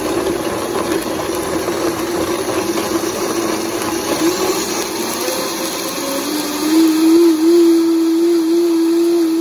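Countertop blender running, puréeing chiles and liquid into a salsa. About six and a half seconds in its hum turns steadier and louder as the contents go smooth.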